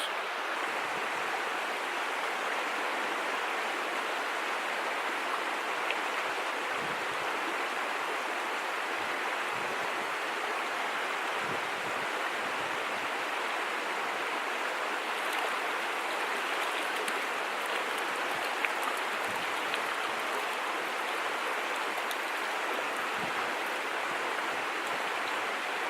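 Mountain creek water running over rocks: a steady, even rush of flowing water.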